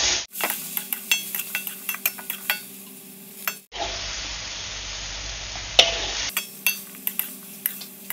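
Long beans and tofu stir-frying in a wok over a steady sizzle, while a metal spatula scrapes and clicks against the pan many times. In the middle there is a stretch of plain sizzling without the clicks.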